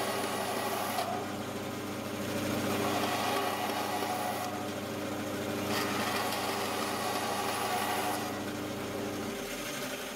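Band saw running with a steady motor hum while cutting the corners off a small square wood blank; the sound of the blade in the wood comes up twice as a louder hiss, and the saw begins to fade near the end.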